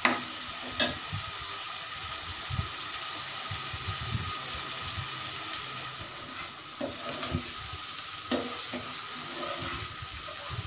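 Sliced onions frying in oil in a metal kadhai, a steady sizzle. A metal ladle stirs them and scrapes and clicks against the pan a few times. The onions are being softened gently, not browned.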